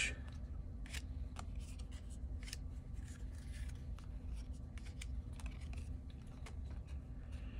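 Trading cards being handled and flipped through: a string of light clicks and soft slides of card stock against card stock.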